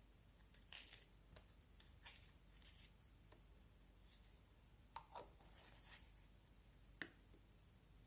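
Faint, scattered crackles and clicks of slime being handled, a few sharper pops about five and seven seconds in.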